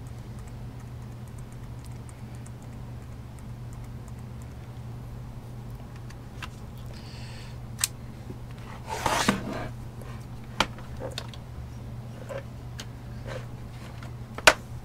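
Scattered sharp clicks and a brief rustle of hands handling a laptop and its parts, over a steady low hum. The loudest click comes near the end.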